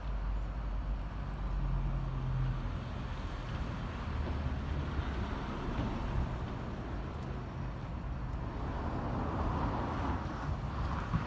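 Steady outdoor background noise of road traffic, a continuous rumble and hiss with no distinct events.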